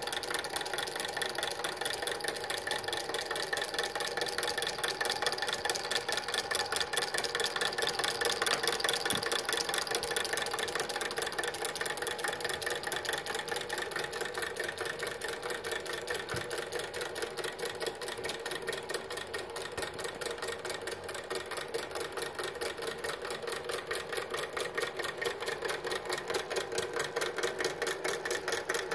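The working miniature piston engine of a custom model semi truck running, a fast, even mechanical clatter that continues without a break.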